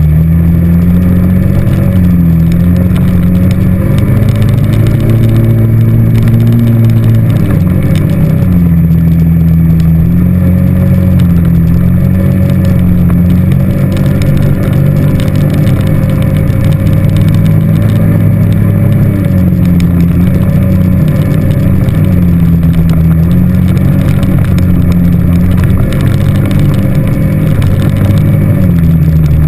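ATV engine running under way, its revs climbing from about four seconds in and dropping back near eight seconds, then easing off and picking up again several times with the throttle.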